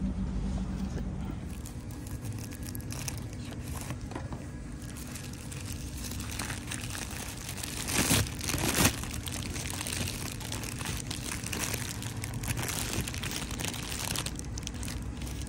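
A wrapper crinkling and rustling as it is handled and opened, with two louder rustles about eight and nine seconds in.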